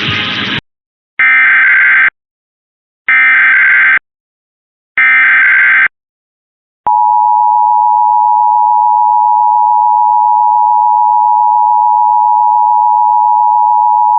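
Emergency Alert System test over broadcast radio: three bursts of the SAME digital header tones, each about a second long with gaps of about a second, followed about 7 s in by the steady two-tone EAS attention signal. The station's program audio cuts off abruptly within the first second.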